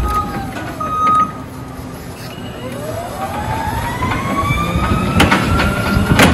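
Forklift running, its drive whine rising steadily in pitch as it speeds up, after a couple of steady beeps from its warning alarm in the first second. Two sharp knocks near the end.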